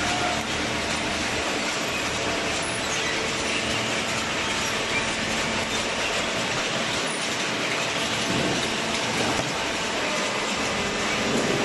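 High-speed cardboard (OCC) baler running: a steady, dense mechanical din with a faint steady hum underneath.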